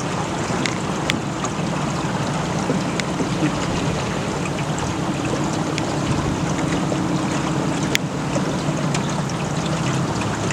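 A motorboat's engine running steadily with a constant low hum, over the rush of water and wind as the boat moves along.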